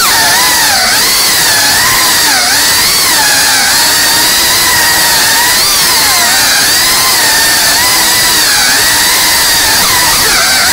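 FPV racing quadcopter's electric motors and propellers whining loudly and close up, the pitch rising and falling again and again with the throttle as it flies.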